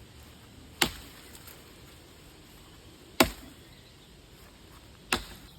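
Three axe blows biting into a dead, dry log, about two seconds apart: a Snow and Nealley 2¼-pound boy's axe chopping through the wood.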